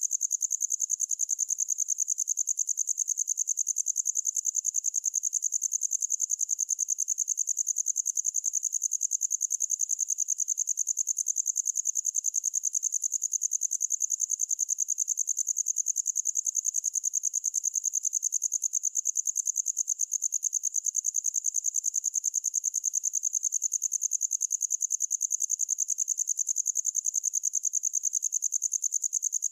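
Cricket chirping in a steady, rapid, high-pitched trill that keeps the same pitch and level throughout.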